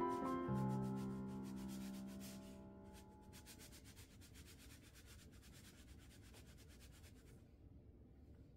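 An iron sliding back and forth over fabric on an ironing board: a faint, fast rubbing that stops near the end. Piano music dies away during the first three seconds.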